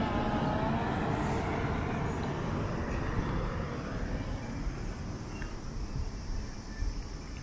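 A vehicle passing by and moving away: its tone of several pitches falls gradually over the first couple of seconds and fades into a steady background rumble.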